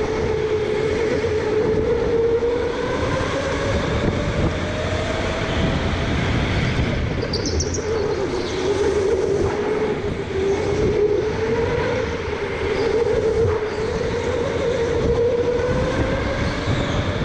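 Electric go-kart motor whining, its pitch rising and falling with speed, over a steady rumble from the tyres and chassis. A brief high squeal comes about seven seconds in.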